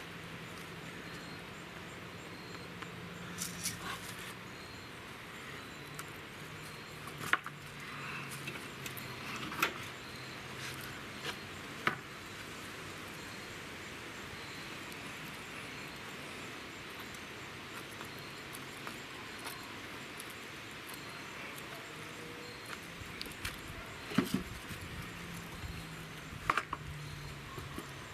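A few sharp clicks scattered over a steady faint hiss, with a faint low hum in places.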